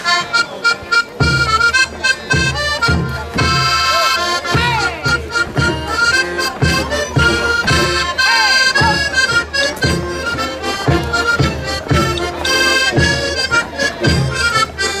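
Traditional folk dance tune led by accordion, played at a lively pace over a steady beat.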